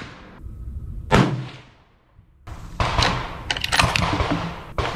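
Bolt of a bolt-action rifle being worked between shots. A sharp knock with a ringing tail about a second in, then from about halfway a run of metallic clicks and sliding as the bolt is cycled to chamber the next round.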